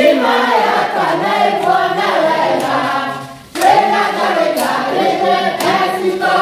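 A group of people singing together in celebration, with scattered hand claps. The singing breaks off for a moment a little past halfway, then comes back in.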